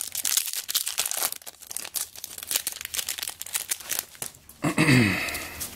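Foil Magic: The Gathering booster pack wrapper crinkling and tearing as it is ripped open, followed by handling of the cards. A short vocal hum comes near the end.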